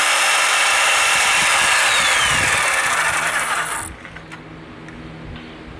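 Power tool cutting into wood, running loud and steady, then stopping about four seconds in. A faint hum and a few light knocks follow.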